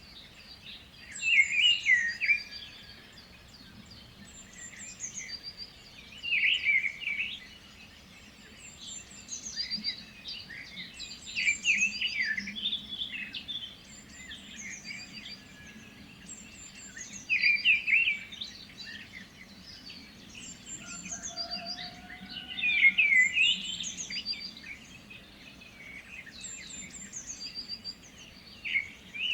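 Songbirds singing: one louder warbled song phrase comes back about every five seconds, with thin high chirps from other birds in between.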